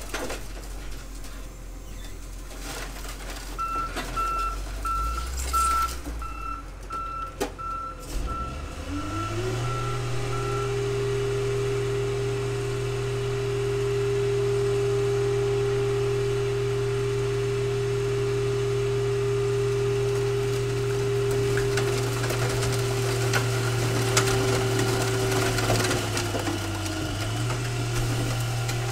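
A heavy machine's reversing alarm beeps steadily for several seconds. About nine seconds in, the car crusher's power unit speeds up to a steady pitched run under load as the crushing lid comes down on stacked cars. Near the end the pitch dips briefly and then settles again.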